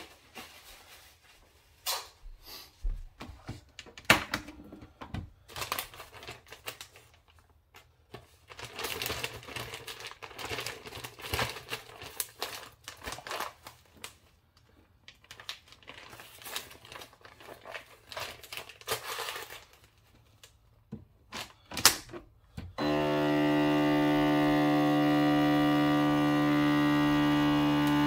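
Plastic vacuum bag crinkling and rustling as it is handled and fed into a countertop vacuum sealer, with sharp clicks as the lid is pressed shut. Most of the way through, the sealer's vacuum pump starts with a steady, loud humming drone as it draws the air out of the bag of smoked fish.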